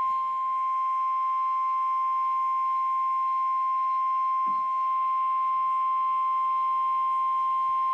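NOAA Weather Radio warning alarm tone at 1050 Hz: one steady beep held for about eight seconds over faint hiss, then cut off. It is the attention signal that announces a tornado warning broadcast.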